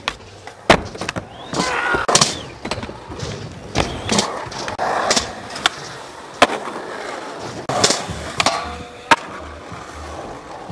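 Skateboards rolling on concrete, with repeated sharp clacks of boards popping and landing.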